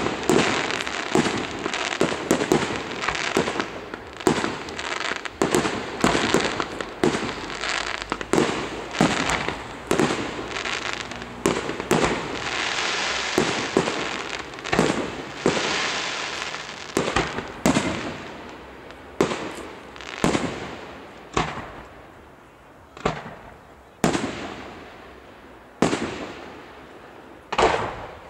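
Aerial firework shells bursting: a dense barrage of overlapping bangs with crackling for the first half, then single bursts about every second or two, each bang trailing off in an echo.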